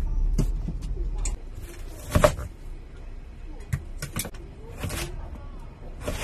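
A kitchen knife and then a cleaver knocking on a wooden cutting board as pork is cut, a handful of separate strokes. A low hum stops about a second in.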